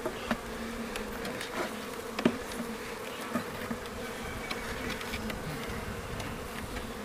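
Honeybees buzzing around an opened hive, a steady hum, with a few short clicks and knocks from the wooden hive frames being handled, the sharpest about two seconds in.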